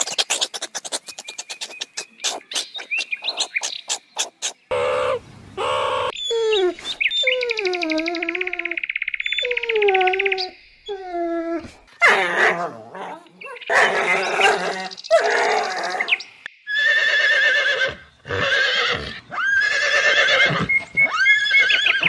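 A run of different animal calls one after another: rapid chirps at the start, gliding cries in the middle, then dog barks, and horses whinnying with a wavering pitch near the end.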